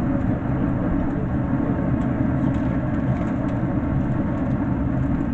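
Steady low rushing noise with no breaks or rhythm.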